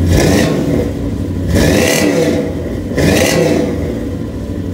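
Toyota 1UZ V8 in a pickup, revved three times through a side-exit exhaust with stainless tips. Each rev climbs and drops back, about a second and a half apart, before it settles to idle.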